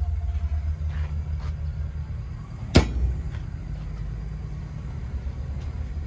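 A steady low rumble, like an engine running, with one sharp click a little under three seconds in.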